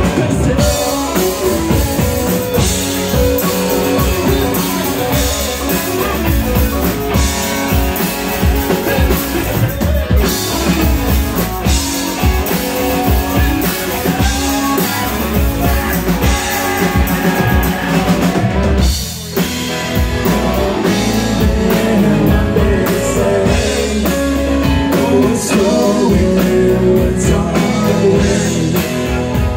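A live rock band playing: electric guitars, bass guitar, drum kit and congas, with a sung lead vocal. The playing drops briefly about two-thirds of the way through.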